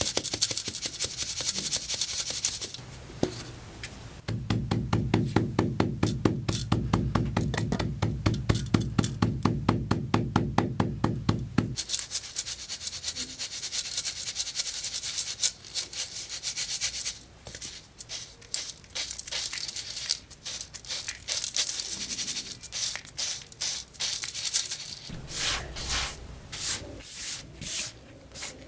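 Colourful chalk being crushed and ground into powder with rubbing and scraping. About four seconds in comes a rapid, even run of strokes lasting several seconds, followed by looser, irregular scraping strokes.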